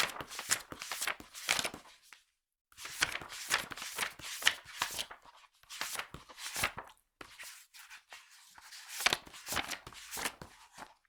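Magazine pages flipped fast, a rapid run of papery flicks several a second, broken by a brief pause about two seconds in.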